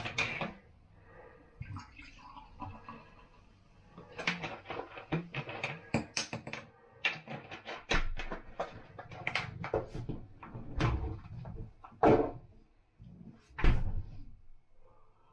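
Cola opened and poured from a plastic bottle into a stemmed glass: a short hiss as the cap comes off at the start, then several seconds of glugging and fizzing as it pours. Two loud knocks follow near the end as the bottle and glass are put down on the worktop.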